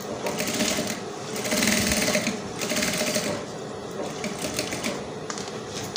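Sewing machine running in short stitching runs as a neckline is understitched, stopping a little past halfway, after which only scattered light clicks of the fabric being handled remain.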